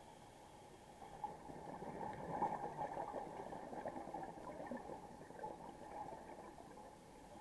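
Underwater ambience with a scuba diver's exhaled bubbles gurgling, swelling between about two and four seconds in.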